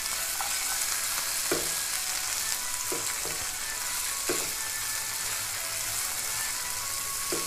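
Onions, tomatoes, ginger and garlic sizzling as they sauté in oil in a frying pan, stirred with a silicone spatula that scrapes the pan a few times.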